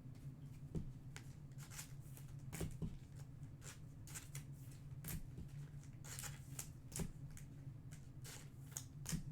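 Trading cards being handled and sorted on a table: an irregular string of light taps, flicks and short slides, over a low steady hum.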